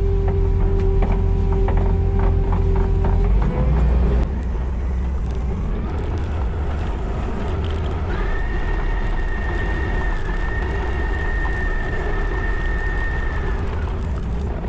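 Skid steer's engine running with a steady low rumble while it works with a heavy load. A steady whine shifts about four seconds in, and a higher whine holds for several seconds later on.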